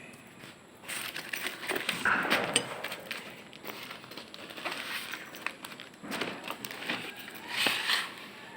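Parcel packaging crinkling and crackling as it is handled and opened by hand, in irregular bursts that are loudest about two seconds in and again near the end.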